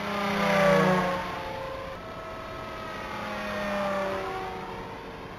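Electric RC model airplane's motor and propeller making two low fly-bys. Each pass is a whine that drops in pitch as the plane goes by; the first, about a second in, is the louder.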